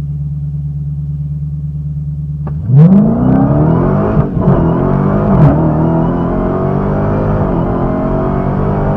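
Supercharged 6.2-litre HEMI V8 of a 2020 Dodge Challenger SRT Hellcat Redeye, heard from inside the cabin: a steady low rumble held at the line, then a hard launch about three seconds in, with engine pitch climbing and dropping at each upshift. About a second and a half after launch, at the 1-2 shift, the sound briefly cuts out: the shift hiccup that the owner puts down to hitting or anticipating the rev limiter.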